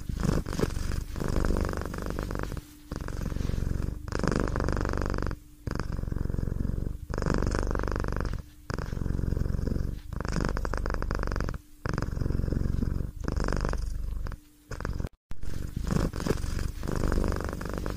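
A domestic cat purring, in long breath-by-breath phrases with short pauses between them.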